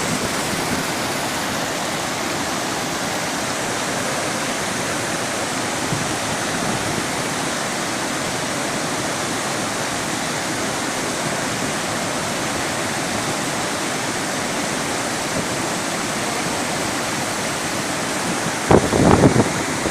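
Purwa waterfall's water pouring and crashing in a steady, even rush. Near the end, low buffeting hits the microphone.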